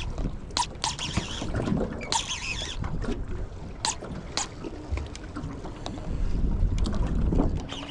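Baitcasting reel's drag giving line to a hooked fish in short, jerky whines and scattered sharp clicks, over wind on the microphone and water noise. The drag is dirty, sticking and then releasing in jerks.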